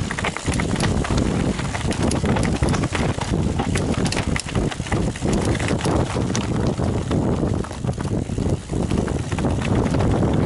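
Mountain bike riding over rough trail: a steady run of rattles and sharp knocks from the bike and its tyres over stones, under a low wind rumble on the microphone.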